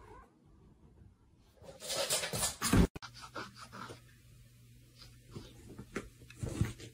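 A cat's loud, harsh call about two seconds in, then soft rustling and light taps.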